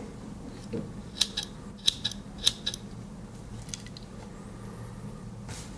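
The small spring-loaded scissors of a Victorinox Compact Swiss Army knife clicking as they are worked: a handful of sharp metallic snips between about one and three seconds in, with a soft rustle of handling near the end.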